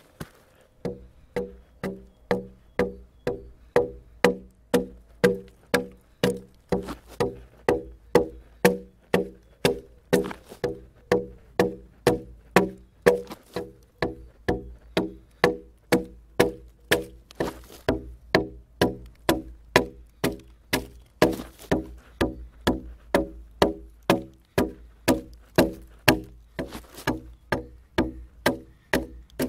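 Background music with a steady knocking beat, about two beats a second, over a sustained bass.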